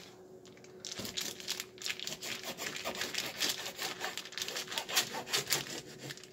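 Kitchen knife sawing back and forth through raw bacon still sealed in its plastic packet on a cutting board: quick rasping strokes, starting about a second in.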